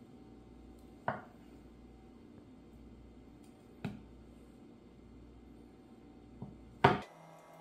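Kitchen knife slicing through a block of canned luncheon meat and knocking on a wooden cutting board: a few sharp knocks a few seconds apart, the loudest near the end.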